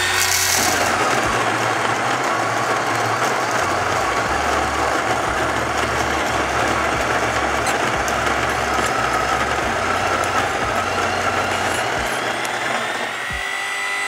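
WPM Welhome Pro ZD-10T electric conical burr coffee grinder grinding an 18 g dose of beans: a loud, steady grinding with a motor whine, with beans rattling into the hopper at the start. Near the end the grinding noise thins and a clearer steady whine is left as the last beans clear the burrs.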